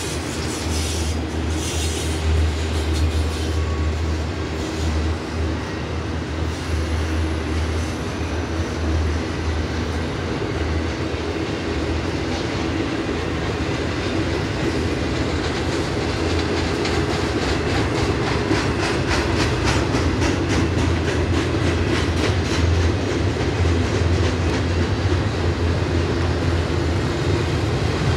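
Freight train of intermodal container cars rolling past, a steady rumble with wheels clicking over the rail joints. The clicks come thicker and more regular in the second half.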